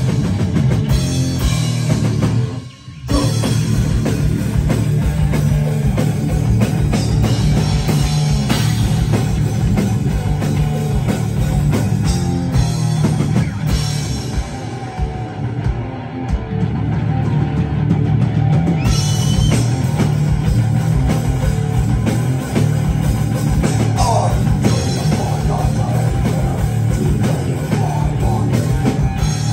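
Live heavy rock band playing loud: distorted electric guitars over a drum kit. The band stops dead for a moment about three seconds in, then comes straight back in.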